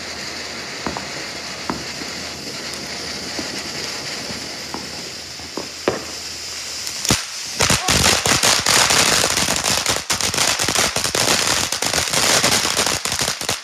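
Ground fountain firework hissing steadily as it sprays sparks, with a few scattered pops. About seven seconds in it breaks into loud, dense crackling, which cuts off suddenly at the end.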